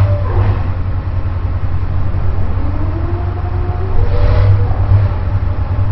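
Engine-rumble sound effect in an animated intro: a deep steady rumble with revs gliding up and down, and whooshes near the start and about four seconds in.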